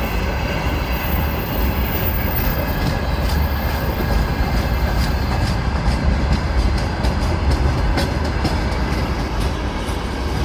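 Long freight train rolling past with a steady, loud rumble of wagons. Its wheels tick and clack over the rail joints, with the clicks coming thicker about a third of the way in.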